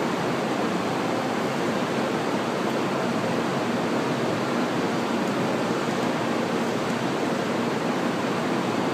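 Steady, even rushing noise of a 700 series Shinkansen train standing at the platform before departure.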